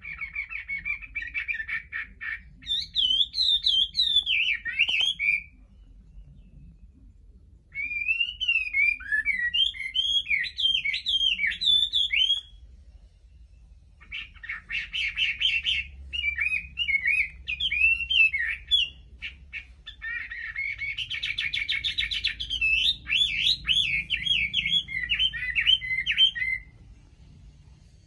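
Chinese hwamei (melodious laughingthrush) singing in four long phrases of quick chattering notes and loud sweeping whistles. Each phrase runs about five seconds, with short pauses between them.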